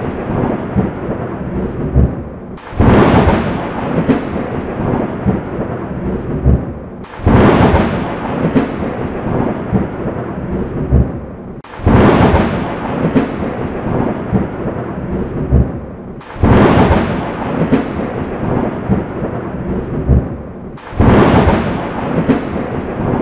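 Thunder sound effect: a sharp thunderclap about every four and a half seconds, five in all, each fading into a rolling rumble, with a steady storm rumble between the claps.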